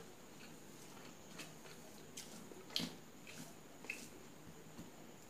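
Close-up eating sounds: soft wet chewing and mouth clicks, with fingers mixing rice and fish curry on a steel plate. Scattered short clicks and squishes, the loudest a little under three seconds in.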